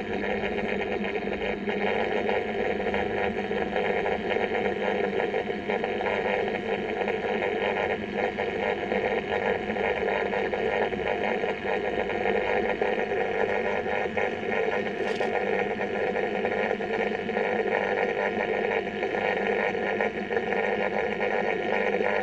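A steady machine hum with several fixed tones, unchanging throughout, with a brief faint hiss about fifteen seconds in.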